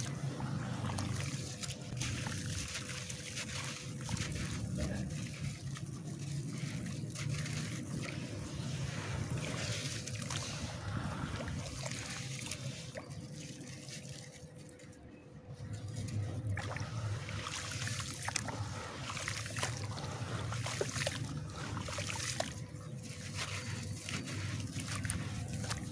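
Hands sloshing and squeezing wet mud in a tub of muddy water: continuous trickling and splashing with many small crackles, dipping briefly about two-thirds through. Near the end a soaked chunk of crumbly concrete-like material is broken up and its grit falls into the water.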